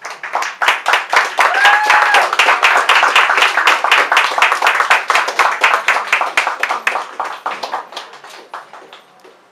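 A small audience applauding with fast, dense clapping, with one voice whooping about two seconds in; the clapping thins out and dies away near the end.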